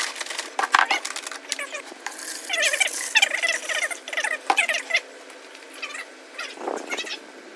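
Liquid fertilizer pouring from a plastic jug into a plastic measuring pitcher in a broken, uneven stream. Clicks and knocks from handling the jug come first.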